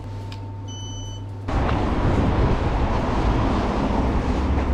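Quiet indoor room tone with a steady low hum, then a sudden cut about a second and a half in to loud, steady, rushing outdoor street noise.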